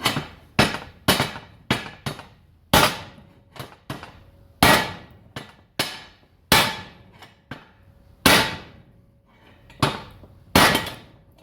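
Hammer blows on a steel car bumper clamped in a vise: about a dozen sharp, ringing strikes at uneven spacing, roughly one a second. The bumper is being bent back into shape.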